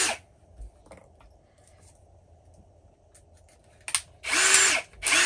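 Cordless drill: a few light clicks as a new bit is handled and fitted into the chuck, then, about four seconds in, two short spurts of the drill's motor spinning up and back down while the keyless chuck is gripped and tightened on the bit.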